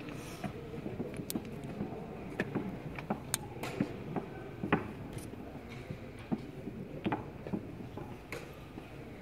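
Irregular sharp clicks and knocks of wooden chess pieces being set down and digital chess clock buttons being pressed during blitz games, over a steady low background hum.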